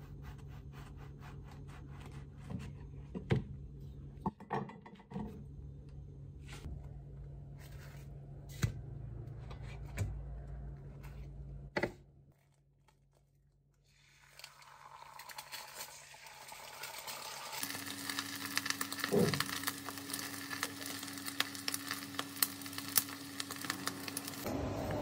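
A knife cutting a bread roll on a wooden chopping board, with a few sharp knocks. After a short hush about halfway through, food starts sizzling and crackling in a frying pan, building and carrying on to the end.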